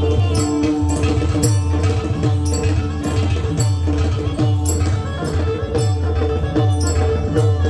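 Traditional devotional music without singing: a steady drone held on two notes, deep hand-drum strokes that slide down in pitch, and bright cymbal clashes keeping a regular beat.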